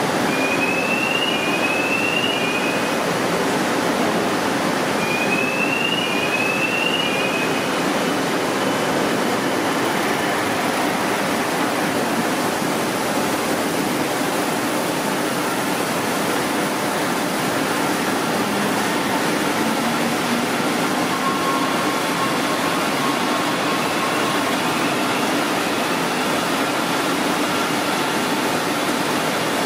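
Steady rushing noise of an Atlas TS350 turret slitter rewinder running. Short rising chirps come in two groups of three in the first eight seconds, with a fainter group later on.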